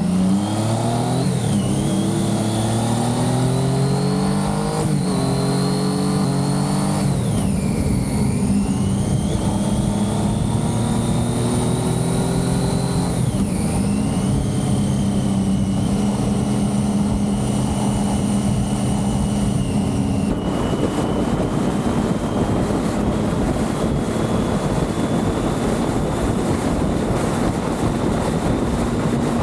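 Triumph Street Triple's three-cylinder engine accelerating through the gears, its pitch climbing and dropping back at each of several upshifts, then holding steady at a cruise. From about two-thirds in, a rush of wind noise grows over the engine.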